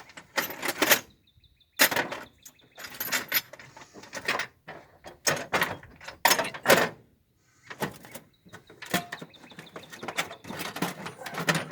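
Irregular clattering and clinking of metal tools being rummaged through, a jumble of sharp knocks and rattles with short pauses between.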